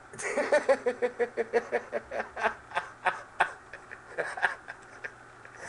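A man laughing: a quick run of short 'ha' pulses that slows into scattered chuckles.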